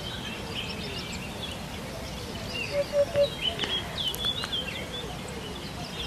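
Eurasian hoopoe giving its low three-note 'hoop-hoop-hoop' call about halfway through, three short even notes. Small songbirds chirp and trill higher up throughout.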